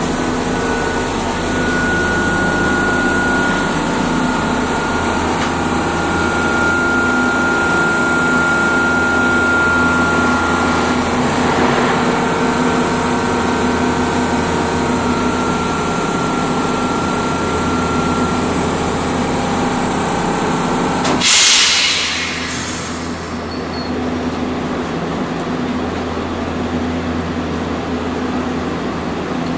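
Hiroshima Electric Railway 800-series tram heard from on board while running: a loud, steady rumble and hum of the car on its rails, with a thin high tone that comes and goes. About 21 seconds in, a sudden loud hiss lasts about a second, and the sound settles a little quieter after it.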